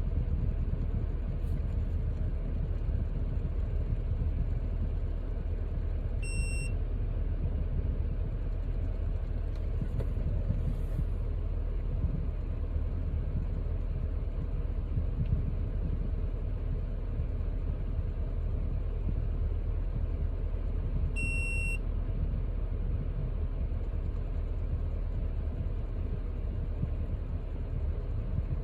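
Steady low rumble of a car cabin on the move, with two short high electronic beeps about fifteen seconds apart.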